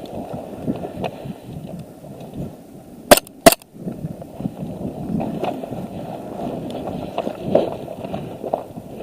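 Two sharp airsoft gun shots, a short snap each, about half a second apart a little after three seconds in, over low rustling and wind-like noise from movement.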